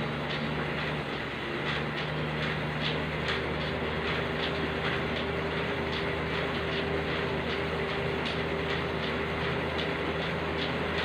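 Home elliptical cross trainer in steady use: a continuous mechanical whirr with light clicks about twice a second, in step with the strides.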